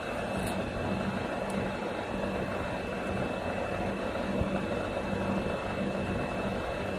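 Tube rolling bending machine running, its rollers drawing a metal tube through and bending it into a ring, with a steady hum and a faint high whine.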